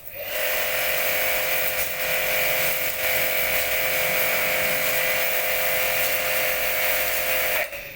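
Orion Super Jet 100-S high-pressure washer running and spraying: a steady motor whine under the hiss of the water jet, shutting off suddenly near the end.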